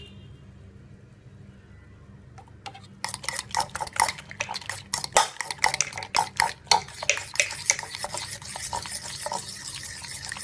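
A metal fork whisking beaten egg mixture in a bowl, with rapid clicks and scrapes of the fork against the bowl starting about three seconds in. A low steady hum runs underneath.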